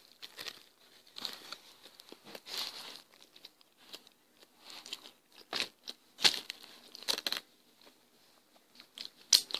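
A person biting into and chewing a panini-pressed sandwich: faint, irregular crunches and crinkles, with a few sharper ones in the second half.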